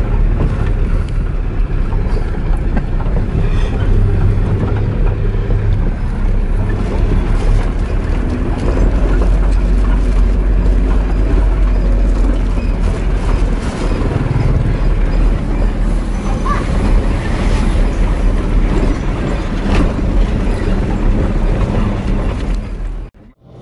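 Engine and road noise inside a moving vehicle's cab: a loud, steady low rumble that stops abruptly near the end.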